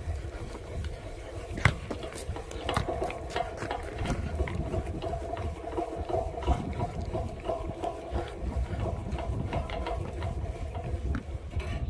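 Height-adjustment mechanism of a portable basketball hoop being worked to lower the rim to 7.25 ft: a steady mechanical whir with many small clicks.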